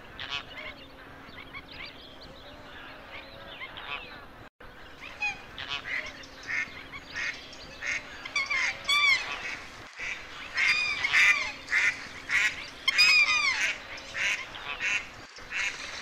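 Waterfowl honking, many short repeated calls from several birds, growing louder and more frequent after about five seconds.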